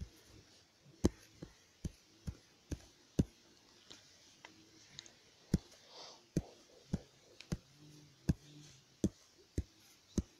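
Fingers or a stylus tapping on a tablet's glass touchscreen while drawing, short sharp clicks about two a second at uneven spacing.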